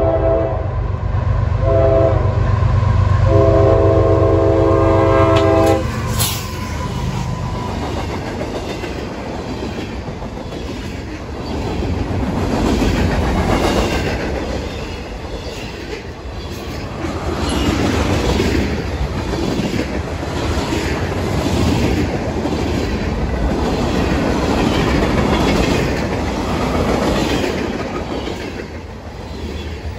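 Freight locomotive air horn blowing a chord: the end of one blast, a short blast, then a long blast that cuts off about six seconds in as the locomotive passes. After that comes the rumble of freight cars rushing past at speed, with a fast, repeated clickety-clack of wheels over the rail joints.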